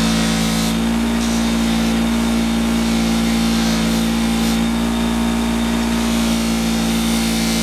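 Electric bench buffer running steadily with a loud, even motor hum while a small aluminium valve stem is held against its cloth buffing wheel to strip the anodizing. Short hissy surges come about a second in and around four seconds in.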